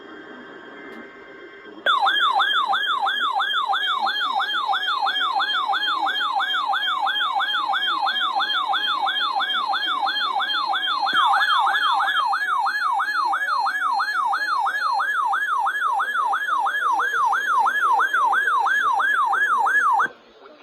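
Emergency Alert System attention tone for a severe thunderstorm warning: a loud, siren-like warbling tone sweeping up and down about two and a half times a second. It starts about two seconds in and cuts off suddenly a little before the end.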